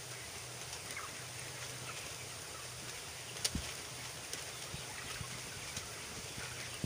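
Broiler barn ambience: a large flock of 20-day-old broiler chickens murmuring over a steady low hum, with scattered small clicks and taps and one sharper click about three and a half seconds in.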